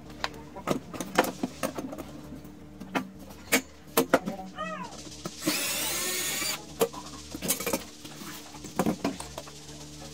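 A cordless drill runs in one burst of about a second, a little past the middle. Around it come scattered knocks and clicks of metal parts being handled.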